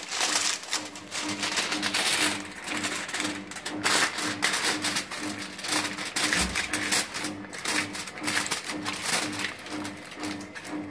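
Aluminium foil crinkling and rustling in irregular crackles as hands crimp it tightly around the rim of a cooking pot to seal it. A low tone pulses about twice a second behind it.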